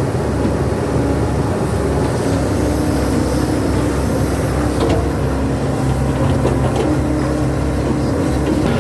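Excavator's diesel engine running steadily under work, with a couple of faint clicks midway.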